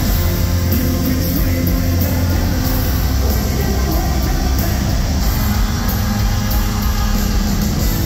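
A hard rock band playing loud live, with electric guitars and bass in a dense, steady mix.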